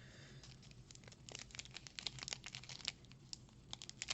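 Plastic booster-pack wrapper crinkling in a rapid run of short crackles as it is handled and torn open.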